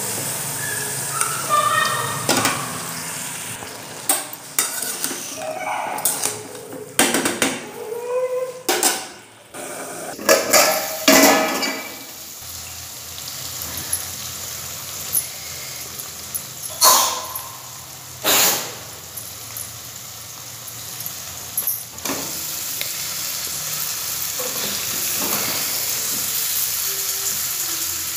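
Green beans, onion and potato stir-frying in a metal kadai: steady sizzling, with a spatula scraping and knocking against the pan many times as the vegetables are turned.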